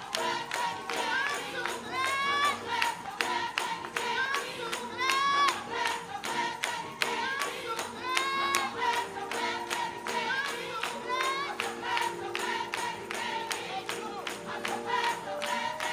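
Gospel music: a lead voice singing over a steady beat of hand claps and tambourine, about three beats a second.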